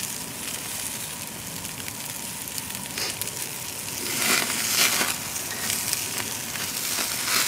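Vegetables sizzling on a hot grill grate, with a metal spatula scraping and clinking against the grate several times from about three seconds in.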